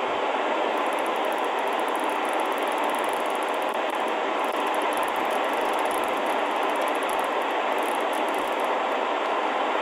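Loud, steady shortwave static from the speaker of a Sangean ATS-909X2 receiver in upper-sideband mode, as it is slowly tuned across the 20-meter amateur band near 14.202 MHz. No readable voice comes through the noise.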